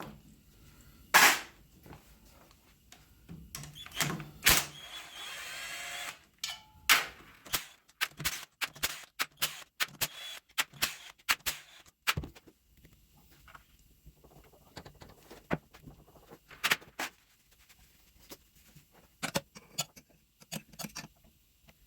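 Scattered clicks, knocks and rattles of tools and parts being handled by hand, with a short scraping sound about four and a half seconds in.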